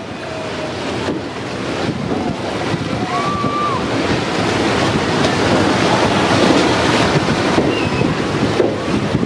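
Wind rushing over the microphone together with sea waves splashing against the bridge piers below, growing louder over the first few seconds. A few faint short squeals come through the noise.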